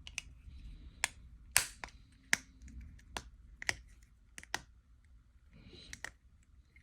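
Sharp plastic clicks and taps, about ten at irregular intervals, as the halves of a Honda remote-head key's plastic shell are lined up and pressed back together.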